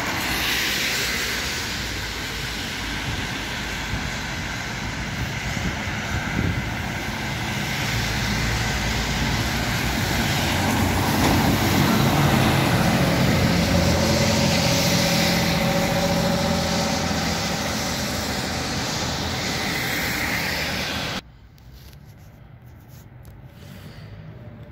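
Traffic on a wet road, then a fire engine's diesel engine passing close by with tyre hiss from the wet surface, swelling to a peak about halfway and easing off. About 21 seconds in, the sound cuts off abruptly to a much quieter street background.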